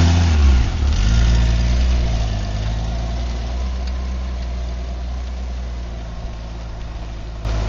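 1995 Honda Gold Wing's flat-six engine rising and falling in pitch as the motorcycle pulls away, then running steadily and slowly fading as it rides off. Near the end the engine sound jumps abruptly louder.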